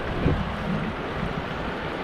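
Steady rush of river water flowing over the streambed, with wind buffeting the microphone and a brief low thump about a quarter second in.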